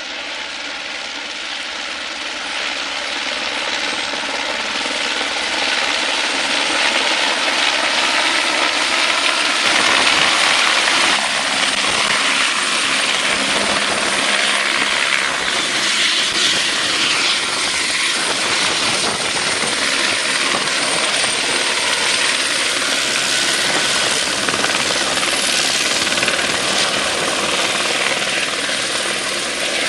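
Airbus AS350B1 AStar (Écureuil) helicopter's main rotor and single turboshaft engine during an approach and low hover to land, growing louder over the first several seconds and then holding steady, with a high steady whine above the rotor noise.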